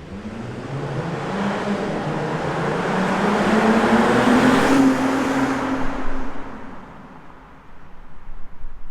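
2008 Porsche Cayenne 957's 3.6-litre VR6 through its stock exhaust, accelerating with its note rising steadily. It is loudest about halfway through, then fades away.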